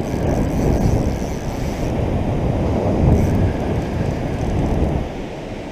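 Wind buffeting the microphone in a steady low rumble, over the wash of breaking surf. A higher hiss rides on top for the first two seconds.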